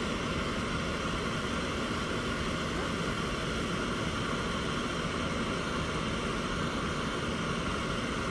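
A steady rushing noise, even and unchanging throughout.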